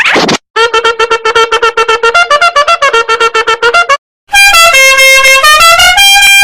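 Goofy meme sound effects: a quick sliding tone, then a fast run of short staccato notes picking out a jumpy tune, then, after a brief break, a loud blaring horn-like melody of held notes stepping up and down in pitch.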